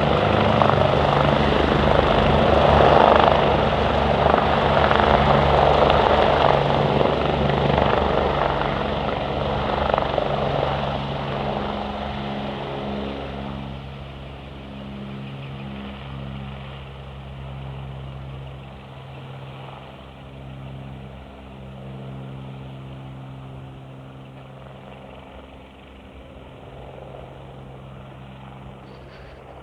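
BK117 twin-engine helicopters flying past, their rotors and turbines loud at first, then fading steadily as they fly away and staying faint to the end.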